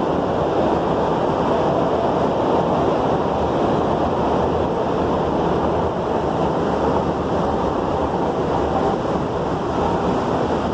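Steady rushing drone of an underground metro station's escalator and air handling, with a low hum underneath, heard while riding the escalator down.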